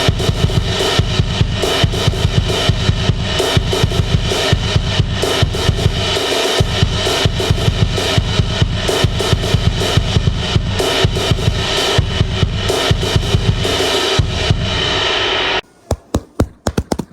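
Music with a fast, dense drum beat and heavy bass. About fifteen and a half seconds in the full mix cuts out suddenly, leaving a few separate drum hits.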